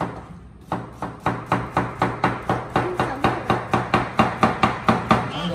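Kitchen knife chopping food on a cutting board in a fast, steady rhythm of about four strokes a second. The chopping starts after a short pause near the start.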